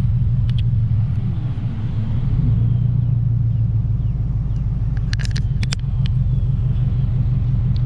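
Car engine running with a steady low rumble, and a few sharp clicks about five seconds in.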